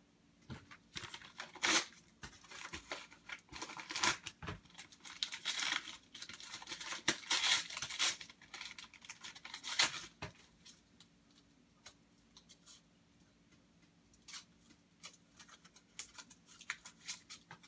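Packaging being torn and crinkled by hand: a run of rasping tears and rustles that thins out to scattered crinkles in the second half.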